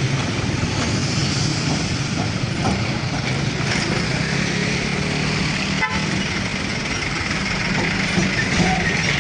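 Steady, loud vehicle noise with a low engine hum.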